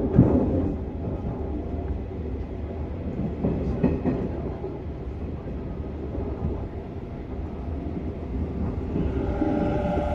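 Hanshin 1000 series electric train heard from inside a motor car: steady running rumble with a sharp wheel knock at the start and another about four seconds in. Near the end a whine of steady tones from the traction inverter and motors sets in.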